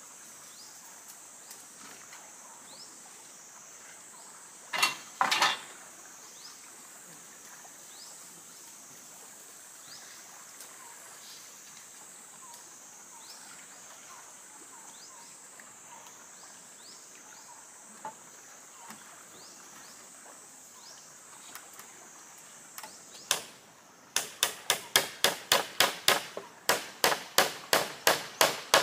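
Insects shrilling steadily in the forest. Two sharp knocks come about five seconds in. Near the end there is a quick, even run of about fifteen strikes on wood, roughly three a second.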